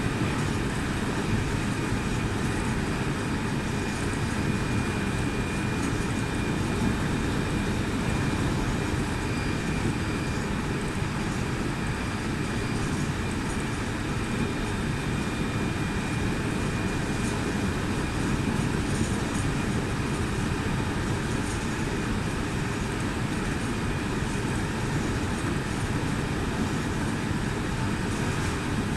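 Meitetsu 2000 series μSKY electric train running steadily, a continuous low rumble of wheels on rail heard from inside the front car, with a faint steady high tone.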